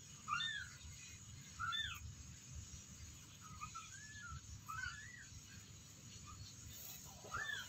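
Young kittens mewing faintly: several short, high-pitched mews spread through the few seconds, each rising then falling in pitch.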